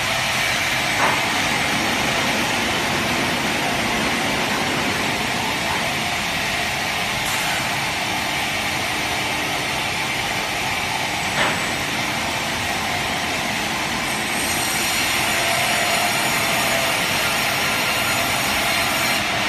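Vertical carriage band saw running with a steady mechanical whir. Two short knocks come about a second in and again near the middle, and a faint high whine comes in after about fourteen seconds.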